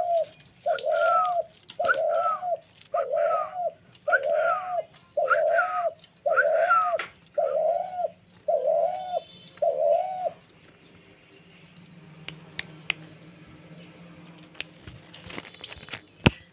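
A caged dove cooing in a steady series of about ten short coos, roughly one a second, which stops about ten seconds in. After that there are a few faint clicks and one sharp knock near the end.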